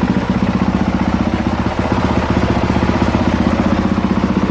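A 2023 Honda CRF450R's single-cylinder four-stroke engine idling steadily, just after a hot restart following a heat soak. It fires right up and runs evenly, with no sign of the hard starting that coolant leaking into the cylinder through a bad head gasket would cause.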